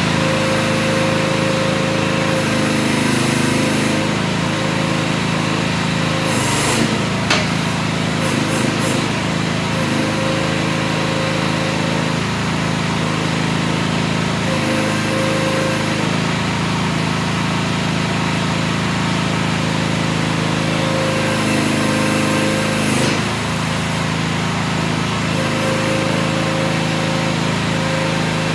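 Visec VC13 mini excavator's 13.5 HP Briggs & Stratton gasoline engine running steadily while the arm and bucket are worked, its note shifting a little now and then. A single sharp click about seven seconds in.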